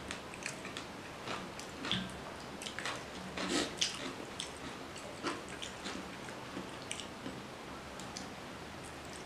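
Close-miked eating sounds: wet chewing and lip-smacking clicks on rice and fish curry, with squelches of a hand mixing the rice and curry. The clicks are scattered, with a louder cluster about three and a half seconds in.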